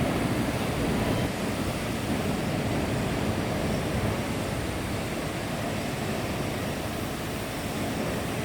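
Steady workshop machine noise: a dull, even rushing hum with no distinct strikes or rhythm.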